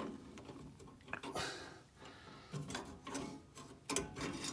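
Hand tools working on a car's drum brake assembly: irregular light clicks and short scrapes of metal on metal.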